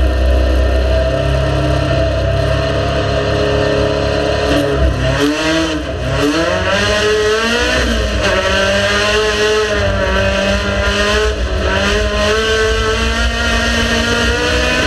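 Race car engine running steadily, then from about five seconds in accelerating hard, its pitch climbing and dropping back repeatedly as it goes up through the gears.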